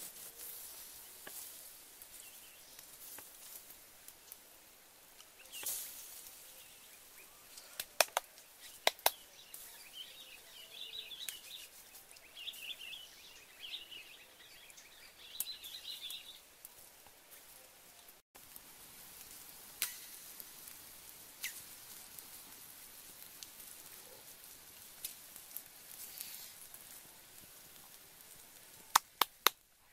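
Outdoor woodland ambience with a few scattered sharp clicks and knocks, a pair of them near the end, and a bird chirping in short bursts for several seconds in the middle.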